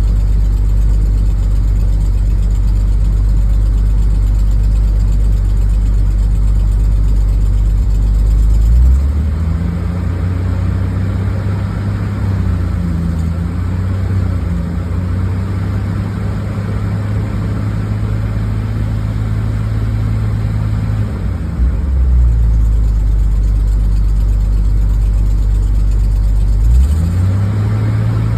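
Toyota 3F-E straight-six engine idling, brought up to a higher steady speed about nine seconds in, dropping back to idle a little past twenty seconds and rising again near the end. It carries a noise that sounds like an exhaust leak although the manifold gasket has been replaced three times; the owner can't tell whether it is an exhaust leak or valve clatter.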